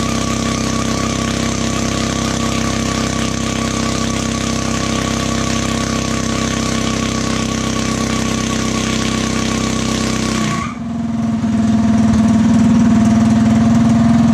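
Tillotson 212 single-cylinder engine running hard in a trike held back by a chain, a steady run with a wavering higher tone over it. About ten and a half seconds in, the sound cuts abruptly to a louder, deeper steady drone.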